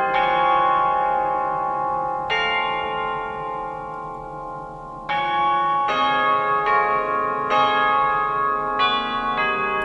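Hymn tune played on a virtual Aeolian-Skinner pipe organ, sounding like chimes or tubular bells. Struck, bell-like notes ring and slowly fade: a long ringing chord through the first half, then a quicker run of struck notes from about five seconds in.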